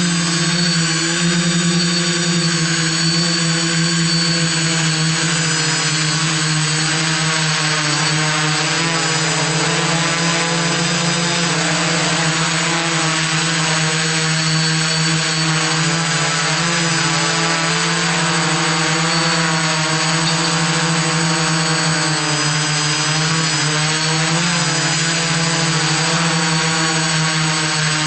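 iDEAFLY IFLY-4S drone's electric motors and propellers buzzing steadily in flight, heard from on board, with the pitch wavering slightly.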